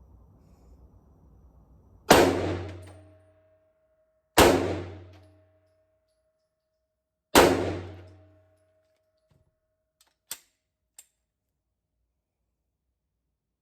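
Three gunshots, two to three seconds apart, each with a decaying echo and a faint ringing tone lingering after the second and third. Two small clicks follow near the end.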